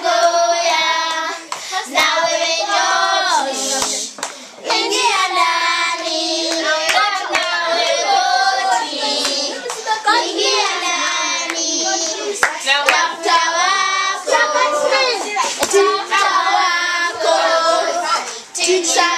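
A group of children singing a song together, with a few hand claps.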